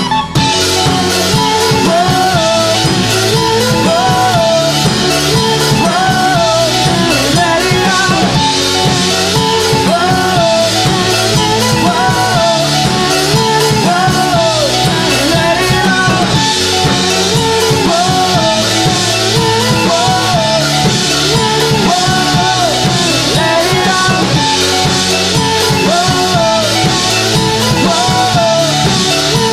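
Indie rock band playing live: drum kit, electric guitar and bass guitar under a sung melody that bends up and down in pitch.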